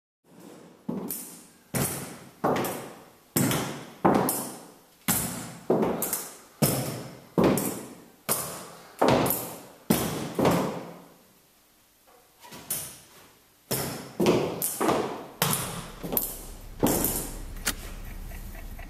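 Metal walking frame being set down on a hard floor step after step, a sharp thud about every three quarters of a second, each echoing in a large bare hall. The thuds pause briefly about twelve seconds in, and a low hum comes in near the end.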